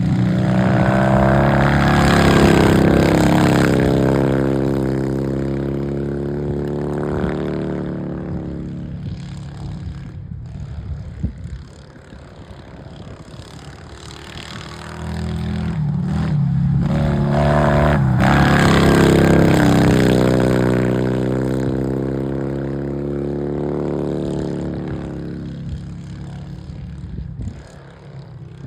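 Racing lawnmower's engine running hard as it comes past twice. Each pass swells up loudly, then fades as the engine note slides lower, with a quieter stretch between the two passes.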